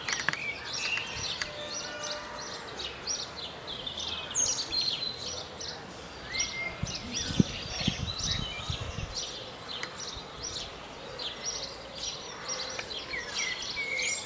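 A chorus of birds chirping in quick, short, high notes, many calls overlapping, with a few low thumps around the middle.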